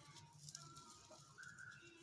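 Near silence: faint room tone with a few soft brief rustles.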